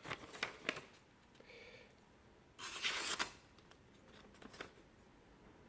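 Freshly sharpened petty kitchen knife slicing through paper: a brief papery hiss about three seconds in, among a few light clicks and handling sounds.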